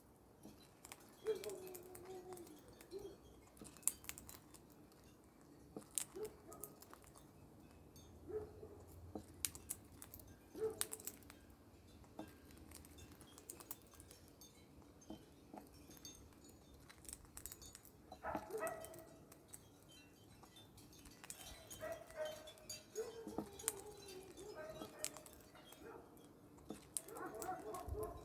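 Pet parrot making short, soft calls and mutters while it eats, among many sharp clicks.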